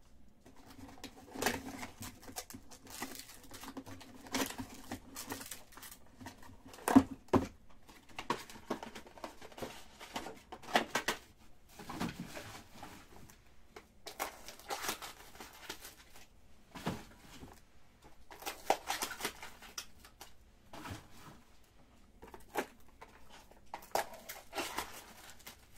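Plastic packaging being handled: irregular crinkling and rustling throughout, with a pair of sharp knocks about seven seconds in.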